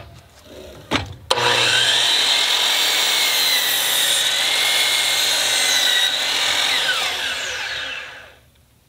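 DeWalt 12-inch sliding compound miter saw, fitted with a new Diablo 44-tooth blade, starts up and runs at a steady high whine while the blade crosscuts a 2x10 board. Near the end the motor winds down with a falling pitch, with no ringing from the blade.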